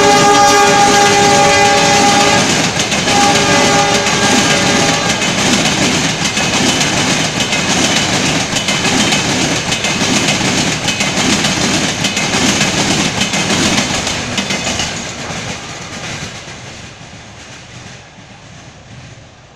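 Indian Railways WDM diesel locomotive's multi-tone horn sounding two blasts in the first five seconds as a Shatabdi Express passes at high speed. The coaches then rush by with wheels clattering rhythmically over the rail joints, the sound fading away over the last few seconds as the train recedes.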